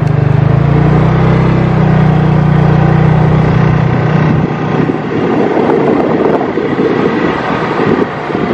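Engine of the vehicle carrying the camera, running steadily as it rolls along a road. After about four and a half seconds the steady hum gives way to a rough rushing noise.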